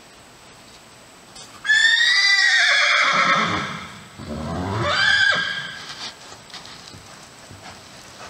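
A horse whinnies loudly for about three and a half seconds, a long call that starts high, drops low, then rises again before trailing off. Soft hoofbeats on the arena sand follow.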